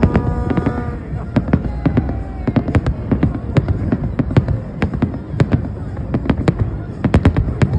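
Aerial fireworks display: a rapid, irregular string of loud bangs and crackles, several a second, over a low rumble.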